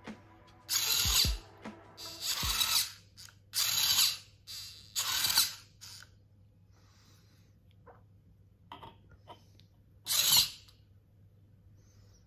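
Hobby servo motor driving a 3D-printed robotic gripper, whirring in five short bursts of about half a second each as the jaws move. The last burst comes about ten seconds in, as the jaws close on an object, with a few faint clicks just before it.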